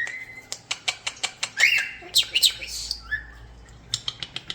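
European starlings chattering: a run of rapid clicks mixed with short whistled and squawky calls.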